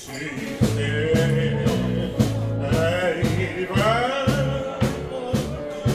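Live dance band playing a tango with a man singing, over a steady beat of about two strokes a second and a held bass line.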